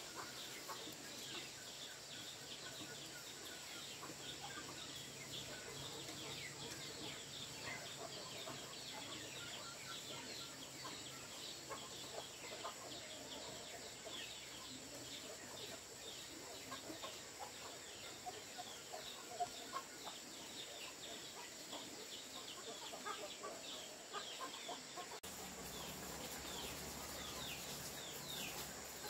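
A flock of chickens, faint: hens clucking and chicks cheeping, with many short high peeps throughout.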